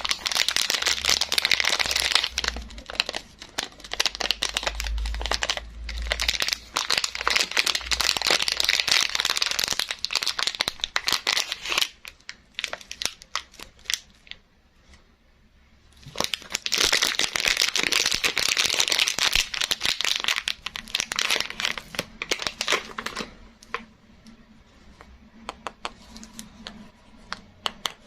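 Soap packaging being unwrapped by hand: wrapper crinkling, crackling and tearing in two long busy spells, with a quieter stretch of a few seconds in the middle and only scattered rustles near the end.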